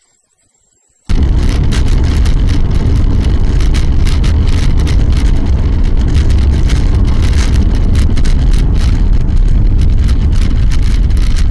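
Near silence, then about a second in a loud, steady rumble of road and engine noise starts abruptly, heard from inside a moving car through a dashcam microphone, full of crackling distortion.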